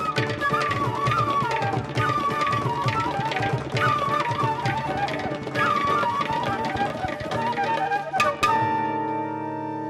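Live ensemble music: a wind instrument plays a fast, ornamented melody over busy hand-drum percussion. Near the end a sharp accent gives way to a long held chord.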